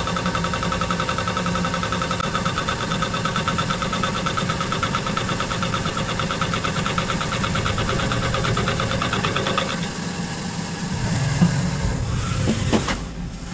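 Fly cutter on a CNC milling machine taking a light facing cut across a cold rolled 1018 steel plate: the single cutting tool strikes the steel every revolution, giving a steady, fast, rhythmic chatter over the spindle's running. The cut ends about ten seconds in; the machine runs on more quietly, with a couple of sharp knocks near the end.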